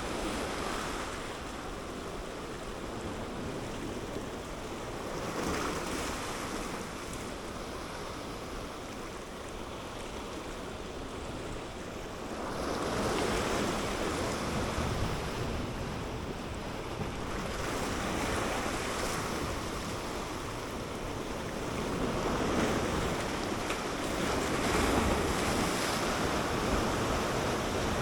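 Sea surf washing against a rocky shore, swelling and easing every few seconds, with wind buffeting the microphone.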